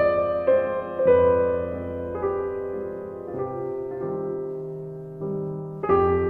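Slow background piano music, soft chords changing about once a second.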